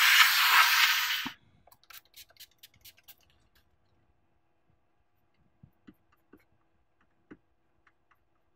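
A blast of compressed air hissing over a bare graphics-card circuit board, cutting off about a second in. Faint scattered ticks and taps follow.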